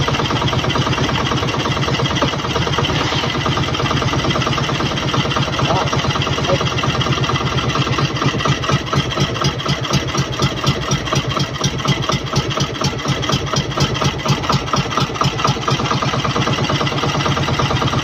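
Engine of a motorized outrigger fishing boat running steadily, a loud, fast, even pulsing.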